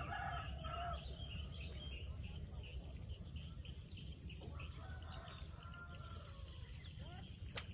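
Steady high-pitched drone of a chorus of insects, over a low background rumble, with faint scattered short bird chirps.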